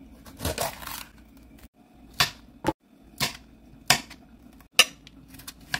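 Kitchen knife cutting a green bell pepper on a plastic cutting board: a longer cutting sound near the start, then six sharp knocks of the blade hitting the board.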